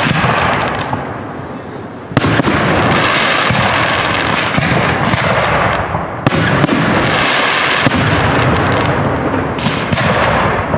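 Aerial firework shells bursting, with sharp bangs about two seconds in and again about six seconds in, each followed by several seconds of echoing, crackling noise that fades near the end.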